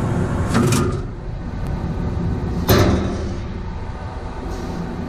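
Steady low mechanical hum, with one sharp knock a little past halfway.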